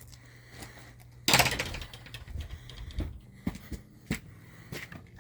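Metal double latch on a garden gate being worked: a loud rattling clank about a second in, then several lighter clicks and knocks.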